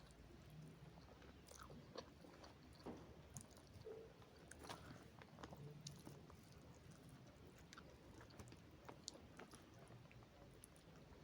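Faint chewing and small wet mouth clicks of people eating noodles, scattered irregularly over a low room hum.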